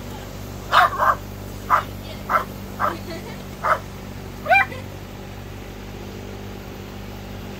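Dachshunds barking at a low-hovering drone: seven short, sharp barks in the first half, the last one rising and falling in pitch, then they stop. A steady low hum from the drone's motors runs underneath.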